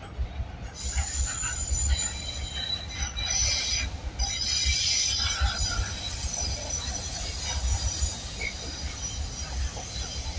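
Container wagons of a long freight train rolling past, their wheels squealing high-pitched on the rails over a low rumble; the squeal starts about a second in and carries on.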